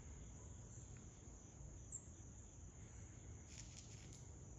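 Faint, steady, high-pitched chirring of crickets, with a few soft ticks about three and a half seconds in.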